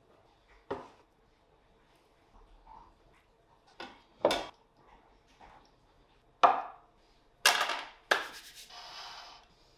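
Kitchen handling sounds: a few separate sharp knocks and scrapes of a wooden spatula and cookware on a stainless steel pan and a wooden board, then a softer brushing rub near the end.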